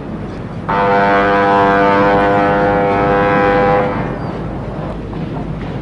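Ship's horn sounding one steady blast of about three seconds, over a constant low rumble of harbour ambience.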